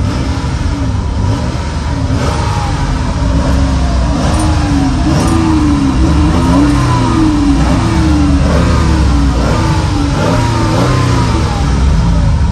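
Jeep Grand Cherokee exhaust fitted with aftermarket straight-through mufflers in place of the stock silencer, with the engine blipped while standing: a run of short revs, each rising and falling in pitch, about one a second over the idle.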